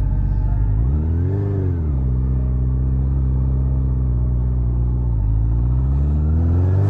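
Honda CB400 Super Four motorcycle's inline-four engine running under way. It revs up and drops back about a second in, holds steady, then climbs again near the end.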